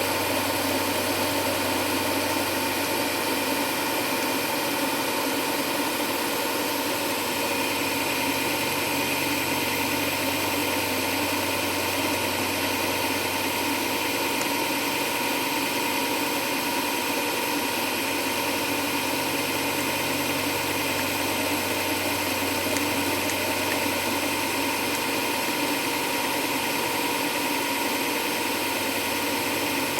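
Small handheld electric grinding tool running steadily with a constant whine as it grinds excess material off an airsoft pistol grip during rough shaping.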